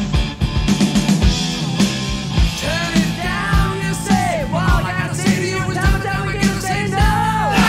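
Rock music with a steady drum beat; a singing voice comes in about two and a half seconds in.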